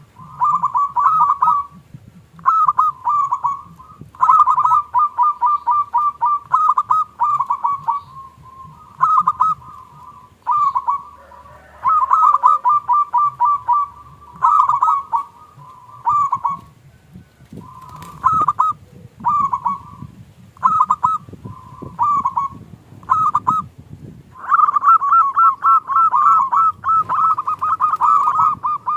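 Zebra doves (perkutut) cooing: phrases of quick, rattling repeated notes follow one another with short gaps, and a long unbroken run comes near the end.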